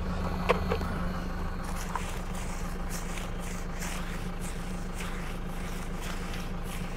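Steady low hum of an idling engine, with faint, repeated strokes of a stiff brush scrubbing a tyre.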